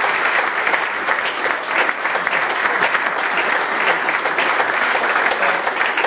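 A crowd applauding, many hands clapping in a steady, dense patter.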